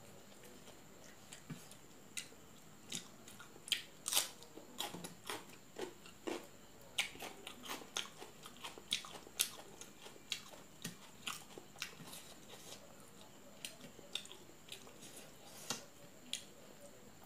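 Close-up eating sounds: chewing and wet lip smacks as fish curry and rice are eaten by hand, a run of short irregular clicks that is busiest in the middle.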